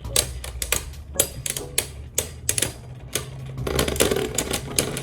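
Beyblade Burst spinning tops clashing in a plastic stadium: a run of sharp, irregular clacks, growing into a dense rattle about two-thirds of the way in.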